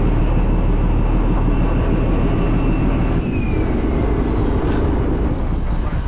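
Fishing boat's engine running steadily, a low drone, with a faint high whine that drops in pitch about halfway through.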